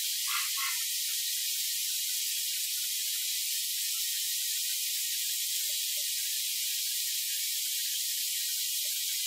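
Oil-marinated kangaroo fillets frying in a very hot steel pan: a steady, high sizzle.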